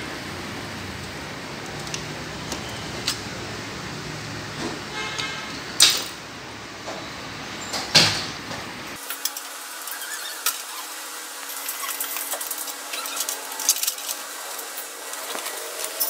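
Hands working power supply cables and connectors onto a PC motherboard inside a metal case: scattered clicks and rattles, with two sharp clicks about six and eight seconds in and a run of small ticks near the end.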